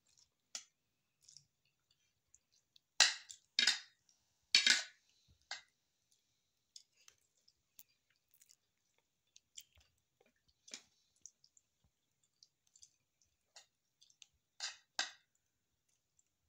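Metal spoon and fork clinking and scraping against a plate of rice during a meal. There is a cluster of sharper clinks a few seconds in, a pair more near the end, and faint ticks between.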